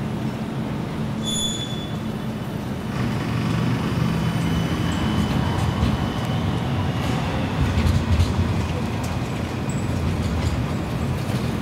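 Light-rail tram passing along street-running track: a steady low rumble, with a faint high wheel squeal on the rails for a few seconds partway through.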